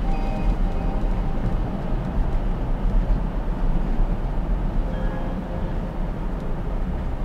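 Steady low road and tyre rumble heard inside the cabin of a moving Tesla Model Y, an electric car with no engine note.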